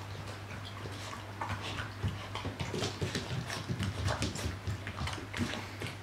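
Kooikerhondje puppies eating from stainless steel bowls: a quick, irregular run of clicks and clinks as kibble and muzzles knock against the steel, busiest in the middle.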